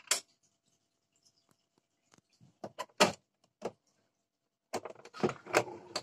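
Sharp clicks and knocks from handling a top-loading washing machine's lid and controls: one at the start, a few about three seconds in, and a denser run of knocks and rattles near the end.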